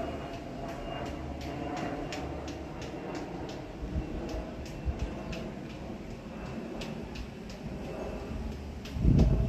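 Steady, distant rumble of a jet airliner's engines as it passes high overhead. A short, louder low thud on the microphone comes near the end.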